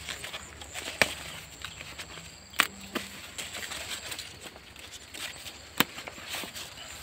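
Rustling and small crackles of things being picked up by hand from grass, with a few sharp knocks, the loudest about two and a half and six seconds in.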